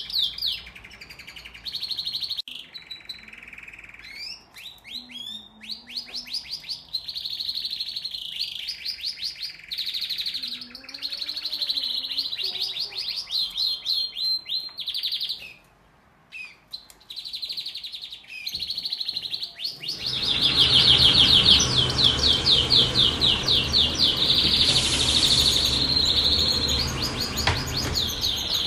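Domestic canaries singing: fast repeated trills and rolls with short pauses between phrases. About two-thirds of the way through, the song grows louder over a steady rushing noise.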